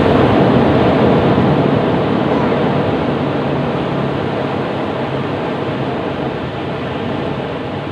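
Ocean waves breaking on a beach: a loud wash of surf that swells just before and slowly fades as the water runs back.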